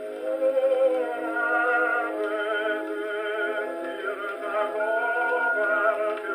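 Tenor singing with wide vibrato over instrumental accompaniment from a 1923 Brunswick 78 rpm record, played acoustically on a Columbia 113a portable wind-up gramophone. The sound is thin, with almost no bass or treble.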